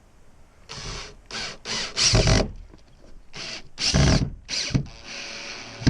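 Drill with a Phillips bit driving screws, run in a series of short trigger bursts in two groups, then a steadier, quieter run near the end.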